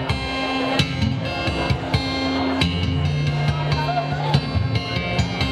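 Solo acoustic guitar laid flat on the lap and played by two-handed tapping: held bass notes under a changing melody, with sharp percussive knocks mixed in.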